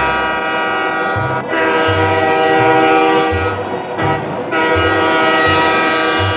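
Train horn sounding in long, steady blasts, with short breaks about a second and a half in and again around four seconds in. Music with a bouncy bass line plays underneath.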